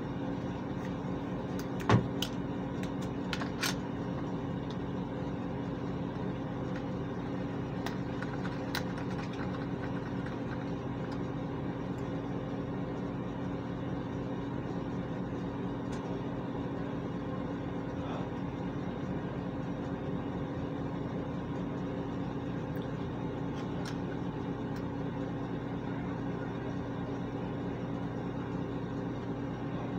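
Steady hum of a ventilation fan, with a sharp knock about two seconds in and a few faint clicks after it.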